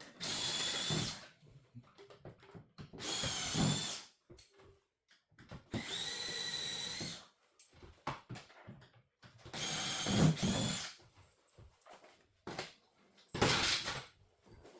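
Power drill running in five short bursts of about a second each, each a steady whine.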